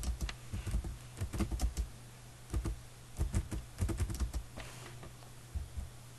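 Computer keyboard being typed in uneven clusters of key clicks, with short pauses between them, over a steady low hum.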